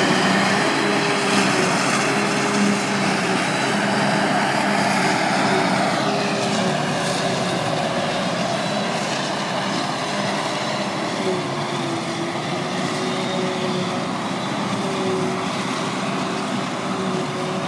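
Claas Jaguar 870 self-propelled forage harvester chopping grass silage, its engine and chopping gear running at full work alongside the tractor pulling the silage trailer: a loud, steady drone with a high whine that shifts in pitch about six seconds in, fading slowly.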